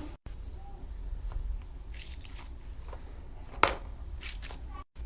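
A fidget toy being handled: soft crunchy rustles and a few light clicks, with one sharp pop or click about three and a half seconds in.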